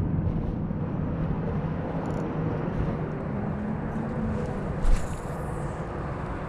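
A fishing cast with a spinning rod about five seconds in: a sudden swish, then the line hissing off the reel for under a second. Under it runs a steady low outdoor rumble.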